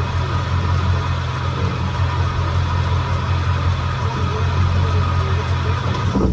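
Chevrolet vehicle running steadily, engine and drivetrain turning, during a check for rear-differential noise.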